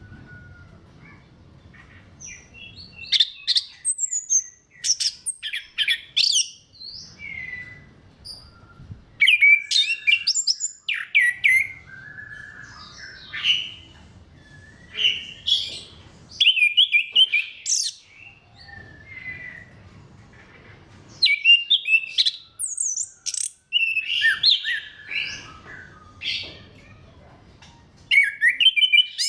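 Orange-headed thrush (anis kembang) singing: rapid, varied phrases of whistles and chirps, each a second or two long, broken by short pauses.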